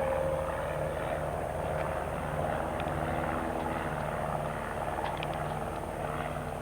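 Cessna light aircraft's piston engine and propeller running steadily in flight, a constant low drone.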